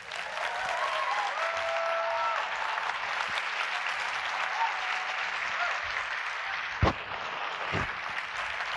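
Audience applauding, with a few voices cheering over it in the first couple of seconds. Two thumps come near the end, the first sharp and loud.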